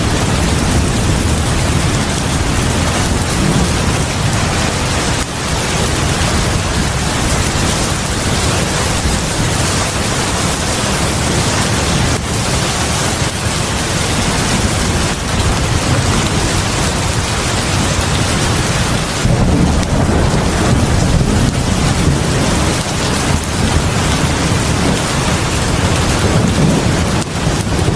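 Heavy rain pouring steadily onto a house porch and the ground in front of it: a dense, even hiss with a strong low rumble underneath, unbroken throughout.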